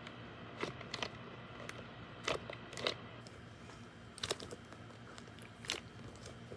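An ice cream sandwich foam squishy toy being squeezed to push the trapped air out, giving about six short, irregular crackles.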